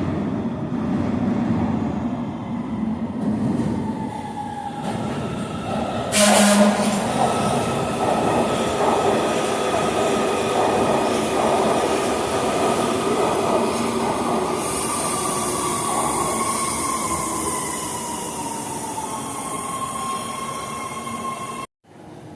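LA Metro rail train running through a station. There is a sudden loud burst about six seconds in, then long, slowly falling metallic wheel squeal over the running noise. The sound cuts off abruptly near the end.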